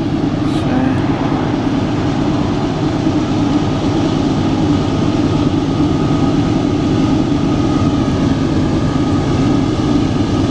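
Diesel freight train locomotives running at full throttle as they pass: a loud, steady engine drone with a thin constant tone above it.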